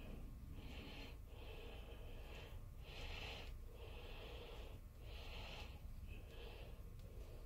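Cast-iron cross-slide nut with freshly epoxy-cast threads rasping as it is turned by hand along a lathe lead screw. Short scraping strokes come about once a second.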